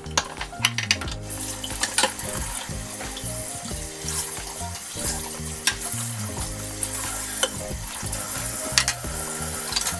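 Tap water running onto a frying pan in a kitchen sink as it is scrubbed, a steady hiss that starts about a second in, with a few sharp clinks of the pan. Soft background music underneath.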